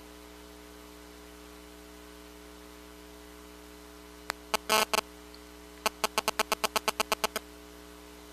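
Computer mouse clicking over a steady electrical hum: a few single clicks about four seconds in, then a quick, even run of about a dozen clicks.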